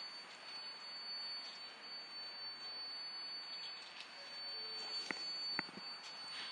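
Faint, steady hiss with a thin, high-pitched steady whine from a New York City 7 train standing idle at an elevated station. Two light clicks come about five seconds in.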